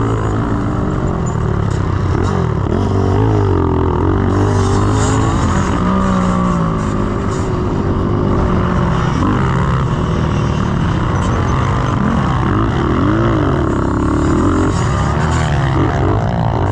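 Honda XR100R's small single-cylinder four-stroke engine revving hard, heard from the rider's helmet. Its pitch keeps rising and falling with throttle and gear changes through the corners.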